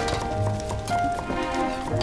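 Background music from the drama's score: held melody notes over a low bass. A few light knocks sound near the end.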